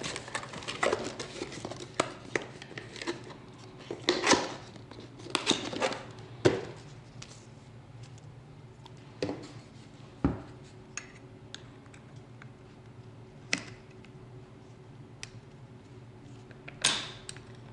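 Scattered light clicks, metallic clinks and rustling as a new cordless reciprocating saw and its blade are handled out of the packaging, with a few louder knocks in the first half and a faint steady hum underneath.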